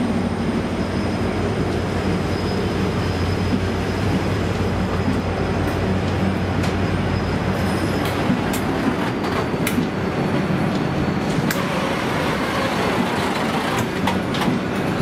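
V/Line locomotive-hauled passenger carriages rolling slowly past with a steady low rumble and a thin high whine, both fading around the middle. Sharp wheel clicks and knocks over the rails start about halfway through.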